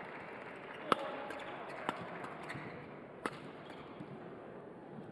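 Badminton rackets striking a shuttlecock in a doubles rally: sharp cracks about once a second, the loudest about a second in, over steady background hall noise.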